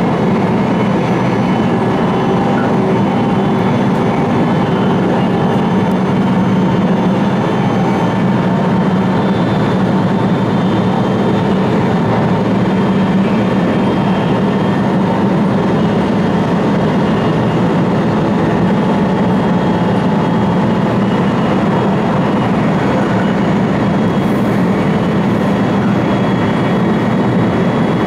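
Steady running noise of a JR East E4 series double-deck Shinkansen at speed, heard inside the vestibule deck: an even rumble of the train on the rails, strongest low down, with no letup or change.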